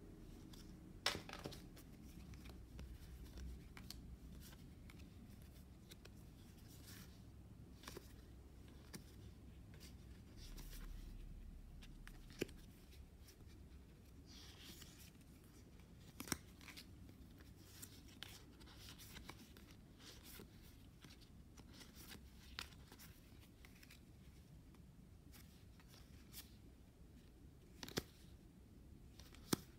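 Faint, scattered clicks and soft slides of cardstock game cards being flipped one at a time through the hands. There are a couple of dozen short, sharp ticks at irregular intervals over a near-silent background.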